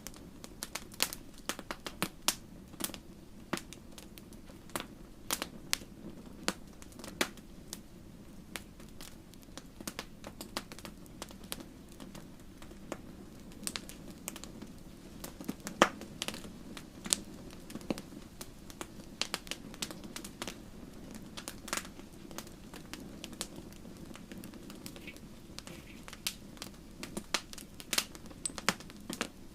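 Wood fire crackling in a fireplace: irregular sharp pops and snaps over a steady low hiss of flames.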